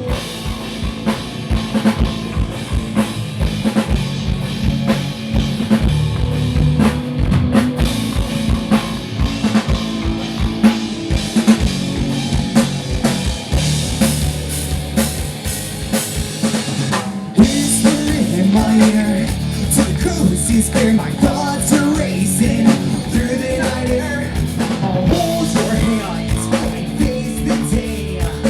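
Live band playing at a sound check, led by a drum kit with kick drum and sustained bass notes underneath. The playing breaks off for a moment about seventeen seconds in and comes back slightly louder.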